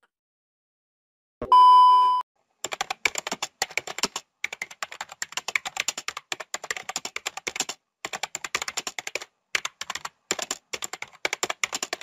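Keyboard typing sound effect: rapid runs of key clicks with short pauses between them, preceded about a second and a half in by a short ding.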